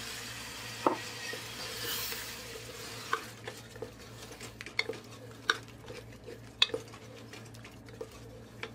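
A splash of water poured into a hot pressure cooker of fried onion and spice paste hisses and sizzles for the first three seconds or so. After that a spatula stirs and scrapes the masala, with sharp clicks against the pot's metal sides. The masala is being fried with a little water so the spices cook through.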